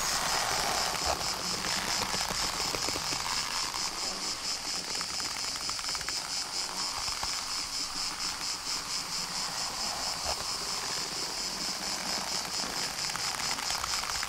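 Chorus of insects (cicadas or crickets) in a high, steady, rapidly pulsing buzz that stops abruptly at the end.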